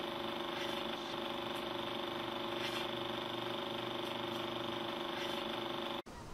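Old film projector running: a steady motor hum with a few faint clicks, cutting off suddenly about six seconds in.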